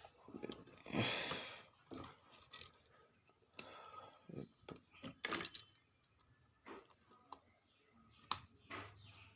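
Faint, scattered clicks and scrapes of small hand tools working on an amplifier circuit board while a transistor is being removed, with a short rustling hiss about a second in and a sharp click near the end.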